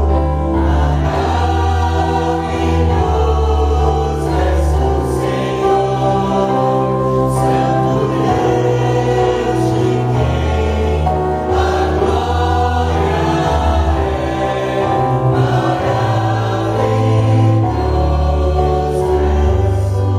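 Church worship music: a group of voices singing together over instrumental accompaniment, with held bass notes changing every second or two.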